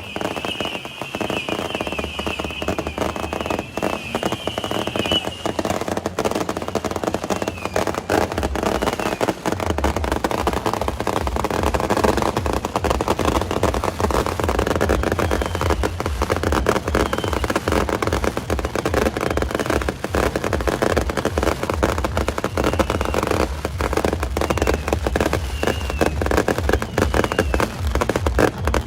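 Beehive fireworks: a rack of hundreds of bottle rockets firing without a break, a dense crackle of launches and bangs. A high wavering whistle rides over it for the first five seconds or so, and the low rumble grows heavier about ten seconds in.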